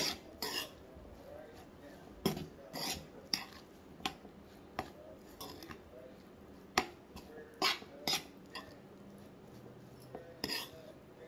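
A metal spoon clinking and scraping against a skillet in irregular strokes as cooked ground turkey and salsa are stirred together.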